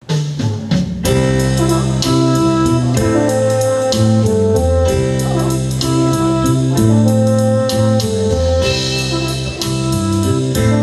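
A live band playing the instrumental introduction to a ballad, with guitar prominent over a full backing.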